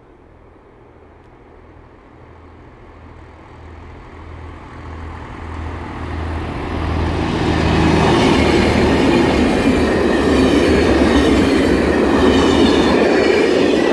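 A train approaching and then passing close by: a low, pulsing rumble grows steadily louder for about eight seconds, then the wagons go past loudly with a rushing, rattling noise of wheels on rails.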